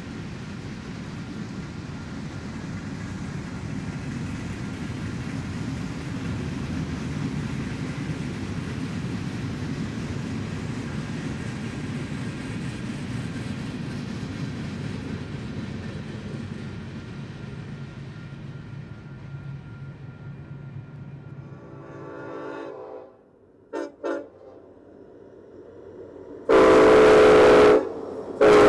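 Freight cars rolling past on the rails, a steady rumble that fades away as the end of the train goes by. Then a few short, faint horn blasts, and near the end a locomotive horn sounds loud and long with a chord of several notes, broken once briefly.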